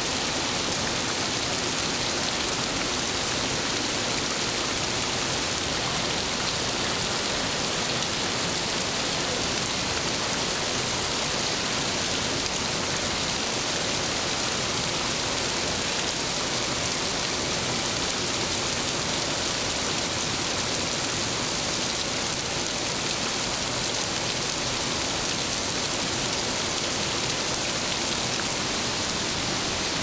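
Falling water pattering steadily onto stone and wet ground: rain and waterfall spray coming down over the ruins, an even hiss with no break or change.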